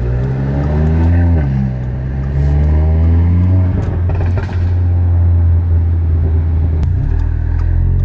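Turbocharged Audi four-cylinder accelerating through the gears. Its note climbs and drops back at each shift, about one and a half, four and seven seconds in, with a short rush of noise at the lift-off around four seconds in. The blow-off valve is unclipped, so the IS38 turbo is left to flutter when the throttle closes.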